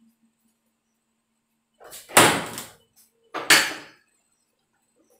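A door banging twice, about a second and a half apart, starting about two seconds in; each bang is loud and sudden with a short ring-out.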